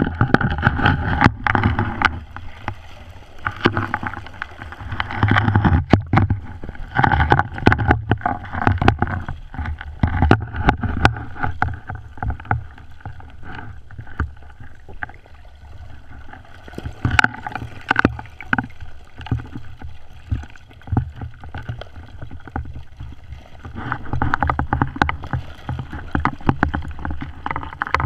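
Muffled water sloshing and bubbling heard through an action camera's underwater housing just below the ice at a dive hole, with surges of divers' regulator bubbles every few seconds and scattered sharp clicks and knocks.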